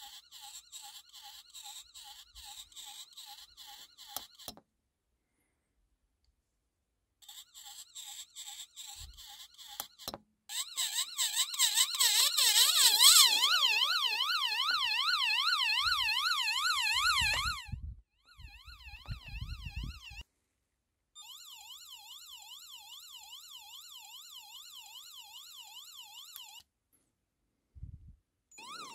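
Electronic siren from a homemade burglar alarm's UM3561 siren-generator chip sounding through a small loudspeaker. It starts and stops several times: a fast pulsing tone at first, then a louder warble rising and falling a couple of times a second.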